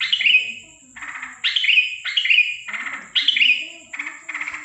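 Yellow-vented bulbul (trucukan) giving an unusual run of harsh calls at night, sharp falling chirps alternating with buzzy rattles, about two notes a second, over a faint steady high whine.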